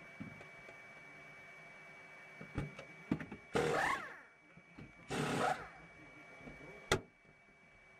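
Two short loud bursts of pneumatic wheel guns during a pit-stop tyre change, each falling in pitch as a wheel nut is run down and tightened. A steady high whine runs underneath, and there is a sharp click near the end.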